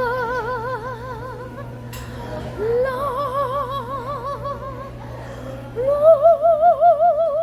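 A woman singing three long held notes on "lá" with a wide vibrato, each sliding up into its pitch and each a little higher than the last, the third the loudest: vocal toning of chakra sounds.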